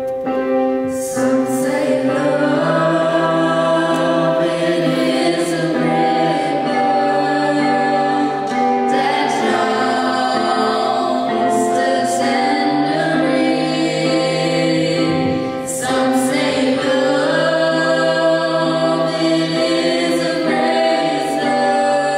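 A small group of young voices singing a song together in harmony, with long held notes.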